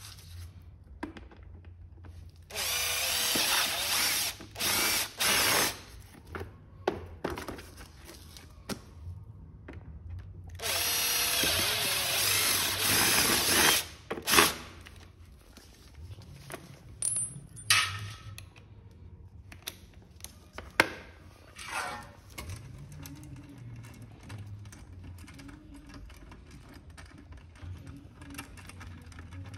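Cordless power driver driving screws into a duct Y-piece fitting: a run of nearly two seconds and two short bursts a few seconds in, then a steady run of about three seconds midway. Scattered clicks and knocks from handling the parts follow.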